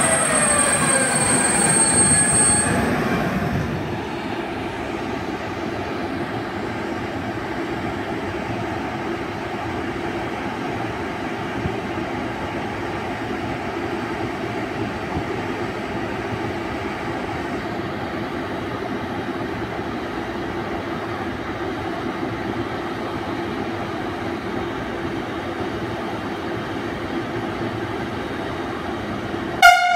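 Siemens Vectron electric locomotive (InRail E191) with its container train braking to a halt: a high brake squeal and an electric motor whine falling in pitch die away in the first three seconds. The standing locomotive then gives a steady hum and fan noise. Near the end comes one short, loud horn blast.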